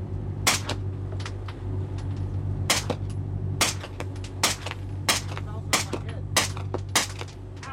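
Gunfire: about ten single shots fired one after another at an uneven pace, roughly half a second to a second apart, over a steady low hum.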